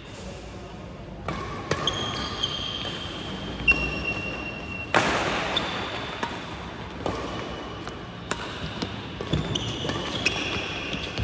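Badminton doubles rally: sharp racket hits on the shuttlecock about once a second, mixed with short high squeaks of court shoes on the floor.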